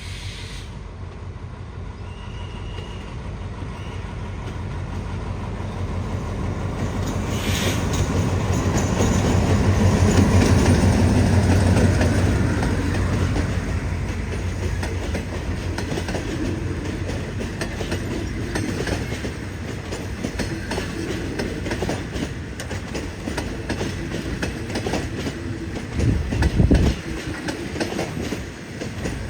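A diesel train passes close by. The locomotive's engine hum swells to its loudest about ten seconds in, then the wheels clickety-clack over the rail joints as the carriages roll past. There is a brief loud low rumble near the end.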